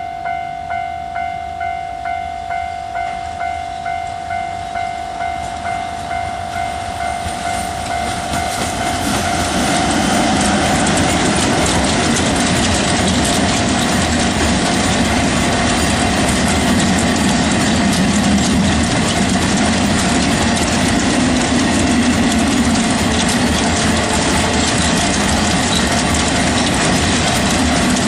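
A level-crossing alarm rings steadily, pulsing about twice a second. About eight seconds in, a train arrives and passes close by, and its loud, continuous wheel-on-rail rumble drowns the alarm.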